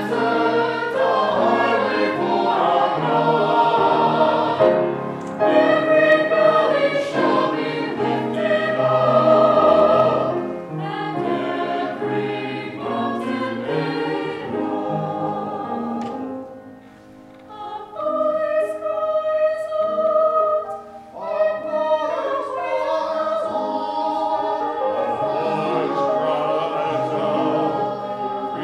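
Small mixed church choir singing an anthem together, with a brief break in the sound about two-thirds of the way through.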